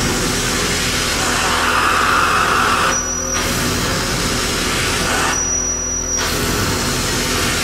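Harsh noise played live on electronics, a handheld knob-covered effects box and patch-cabled gear: a loud, dense, steady wall of noise. A brighter hiss swells in the middle, and the high end cuts out briefly twice, the second time for nearly a second.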